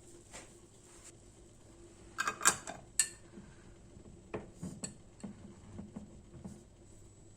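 Kitchen dishes and utensils being handled: a cluster of sharp clinks about two seconds in, then a run of lighter knocks and taps.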